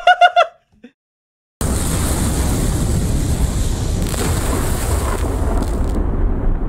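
Fight sound effect from an animated video: after a brief wavering tone and a second of silence, a long, steady explosion-like blast with heavy rumble sets in about a second and a half in. It eases off in the highs near the end.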